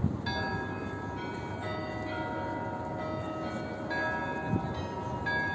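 The Kremlin Chimes, the bells of the Spasskaya Tower clock, ringing a melodic sequence of strikes on bells of different pitch, each note ringing on into the next. A steady low murmur of the open square lies underneath.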